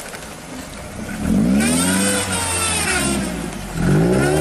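Lifted Suzuki Jimny 4x4's engine revving hard under load on a steep sandy climb, in two surges whose pitch rises and then falls, the second starting near the end.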